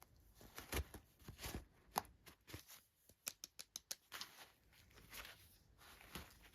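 Toy packaging being handled and opened, with scattered light taps and clicks and a quick run of about seven clicks around the middle.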